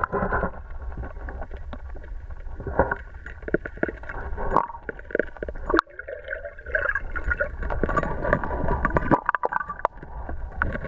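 Muffled underwater sound picked up by a camera in its waterproof housing below the surface: water gurgling and sloshing around the housing, with irregular clicks and knocks and a faint steady hum beneath.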